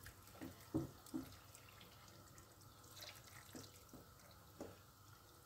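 Broth poured from a metal pot into a clay tagine, faintly, with a few soft drips and light knocks as the pour ends.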